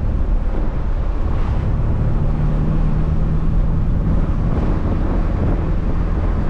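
Inside the cabin of a moving Pontiac GTO: a steady V8 engine drone with road and wind noise. The engine hum grows stronger about a second and a half in and holds for a few seconds.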